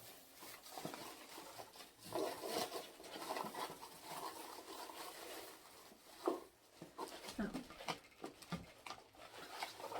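A dog whining softly in the room, with a few quiet rustles and knocks from packaging being handled.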